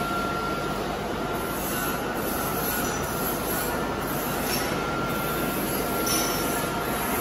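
Steel roofing-sheet roll forming machine running, a coated steel sheet being pressed into a ribbed profile through its roller stations: a constant mechanical running noise with a thin steady whine.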